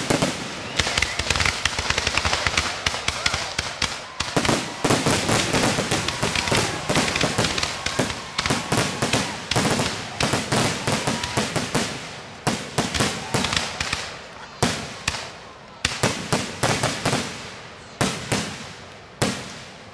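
Aerial fireworks going off in a dense, rapid barrage of bursts and crackling. Over the last few seconds it thins out into a few separate loud bangs.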